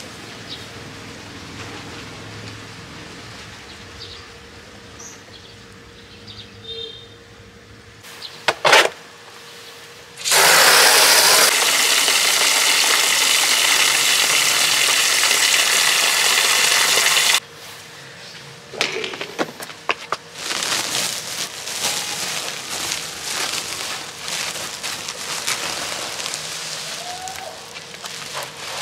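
Garden hose spray nozzle running water into a plastic basin: a loud, steady rush lasting about seven seconds, starting around ten seconds in and cutting off suddenly. Later comes uneven rustling and splashing as the woven plastic sack of rice is handled and lowered into the water.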